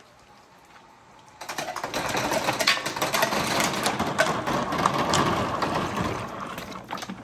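A stream of toy balls (orange 'dragon balls') rattling through a long transparent pipe and clattering down a wooden water slide with water running in it. It starts with faint clicking, then about a second and a half in turns into a loud, dense clatter of many rapid clicks over the rush of the water.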